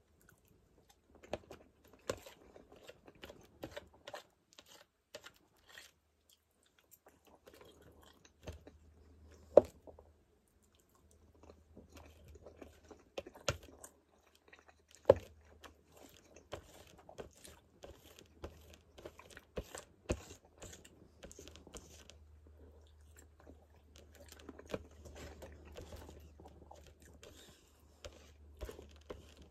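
Close-up chewing and biting of food, with scattered sharp clicks of a fork on the plate; the loudest clicks come about ten and fifteen seconds in. A low steady hum runs underneath.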